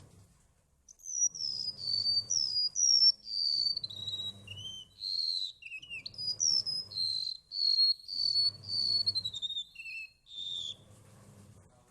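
Golden-bellied gerygone singing: a sweet run of high, clear whistled notes, many sliding downward in steps. It begins about a second in and stops about a second before the end.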